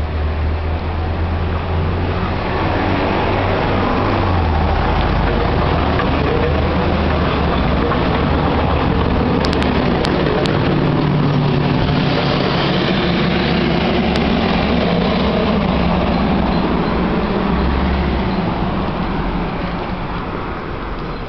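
Road traffic on a wide city street: a steady noise of cars passing.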